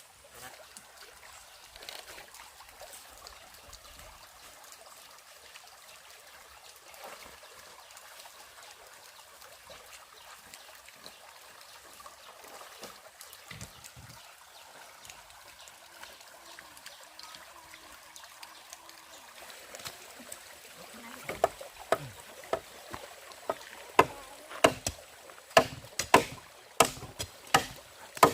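A faint, steady stream-like rush with small scattered clicks. From about 21 seconds in comes a run of sharp, evenly spaced knocks, about two a second, which are the loudest sound.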